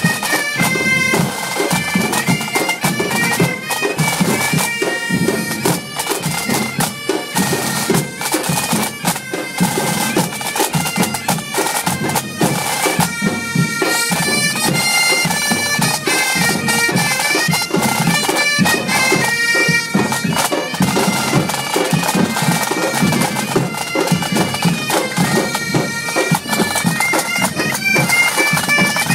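Breton bagad playing: bagpipes carry a tune over the drone, with drums and batucada percussion beating along throughout.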